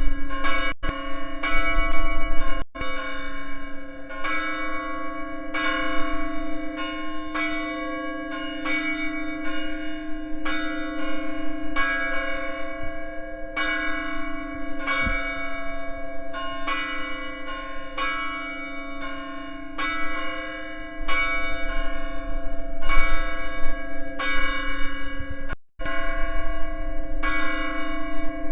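St. Peter's Parish Church bells ringing for Easter: a steady, even run of strokes, about three every two seconds, with the hum of the bells hanging on between them.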